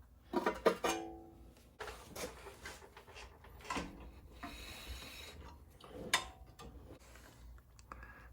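Steel brake backing plate being pried and bent with a metal pry bar: several sharp metal clanks, the first about half a second in ringing briefly, others near four and six seconds, with scraping in between. The shield is being bent away from the rotor to widen the gap that was letting it rub and grind.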